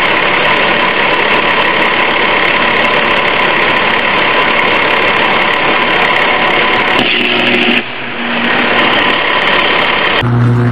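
Sustained electrical arc at an overhead power-line insulator: a loud, continuous crackling buzz with a faint steady tone in it, thinning briefly about eight seconds in. A deep steady hum takes over just before the end.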